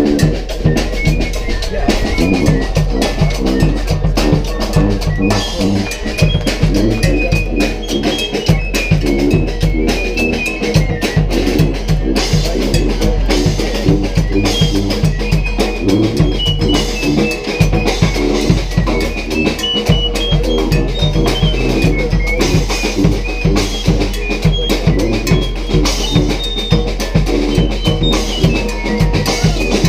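Marching brass band playing, its drum section keeping a dense, driving beat on bass drum and snare while a high melody steps up and down above it.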